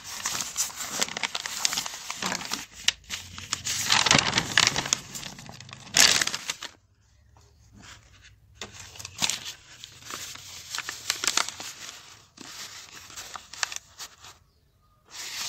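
Paper rustling and crinkling as newspaper and notebook pages are shifted and handled, in irregular spells, loudest about four and six seconds in, with two short quiet pauses.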